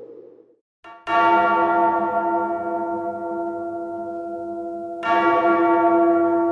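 A large tolling bell struck twice, about four seconds apart, each stroke ringing on with many overtones and slowly dying away.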